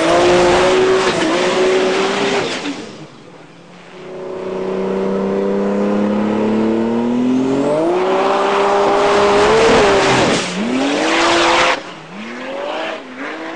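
Turbocharged car engine revved twice, its external wastegate venting a loud rushing blast over the engine note each time. The revs fall away sharply after the second blast.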